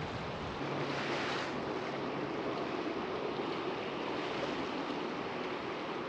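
Steady rushing noise of flowing river water, with some wind on the microphone.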